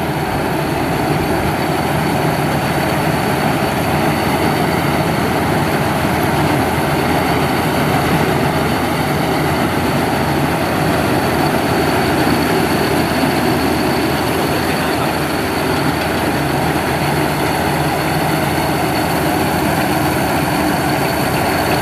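Maxxi Bimo 102 combine harvester with its corn header, its engine and harvesting machinery running steadily under load as it cuts standing corn, with a faint steady high whine over the drone.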